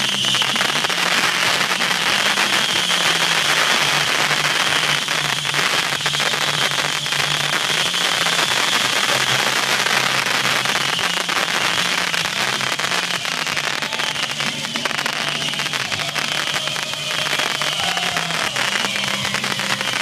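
Ground-level fireworks crackling: a dense, continuous stream of small pops and crackles over a steady hiss.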